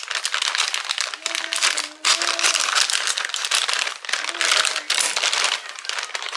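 Plastic packaging of mini pancakes crinkling and rustling continuously as a new, non-resealable bag is torn open and handled, with brief pauses.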